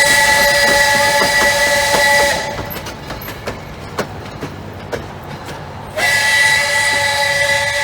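A steam locomotive's whistle blows two long blasts, a chord of several steady notes. The first blast stops about two and a half seconds in and the second starts about six seconds in. Between them the passing train's wheels click.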